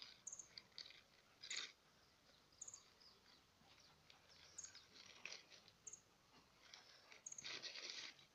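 Near silence with faint, scattered crinkles and rustles of a puppy chewing and tugging gift wrapping paper, a little longer near the end. A short high bird chirp sounds about six times.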